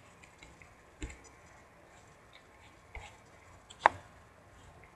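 A few sharp computer mouse clicks: one about a second in, another around three seconds in, and a louder one just under a second later.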